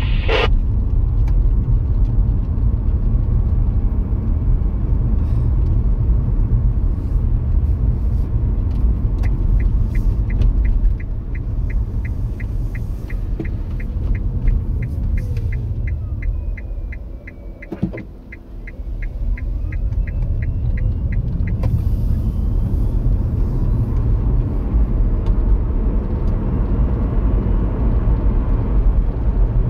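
Car running on the road, heard from inside the cabin as a steady low rumble. From about nine seconds in, a turn-signal indicator ticks evenly for about twelve seconds, roughly three ticks a second. Partway through the ticking the car slows almost to a stop at a junction, the rumble drops away with a single sharp click at its quietest, then it builds again as the car pulls away.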